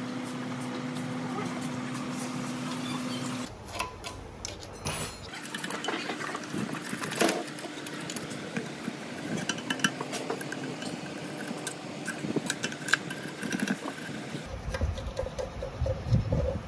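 Metal scraper scraping old gasket material off the gasket face of a diesel engine block, irregular scrapes and clicks of metal on metal. A steady hum runs under the first few seconds.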